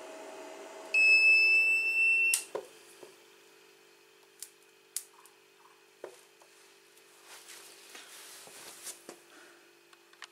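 2000 W power inverter's hum sinking in pitch, then a loud, steady, high beep from its low-power alarm about a second in, lasting about a second and a half and cut off by a sharp click, as the car-battery supply is cut. Scattered small clicks of the battery clamp and cables being handled follow.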